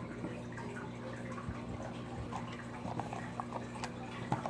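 Steady low hum of background noise, with faint scattered small clicks and taps over it.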